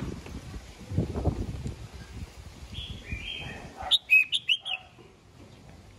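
Red-whiskered bulbul singing. A few soft notes come around the middle, then a loud, quick phrase of sharp whistled notes about four seconds in. A low rumble fills the first two seconds.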